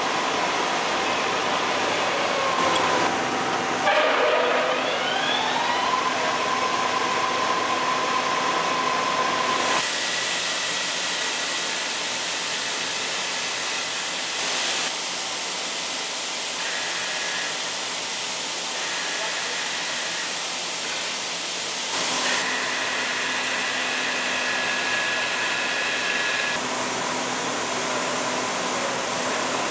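Summit metal lathe running, its drive and gears giving a steady whine of several tones. About four seconds in, the pitches slide as the speed is changed, and the tone changes again near a third of the way through and once more later on.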